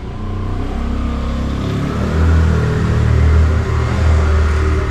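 A motor vehicle's engine running close by with a deep rumble, growing louder over the first couple of seconds.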